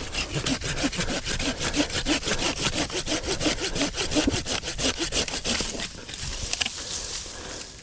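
Hand saw cutting through a shrub's woody stem in quick, even back-and-forth strokes, about six a second, stopping about six seconds in.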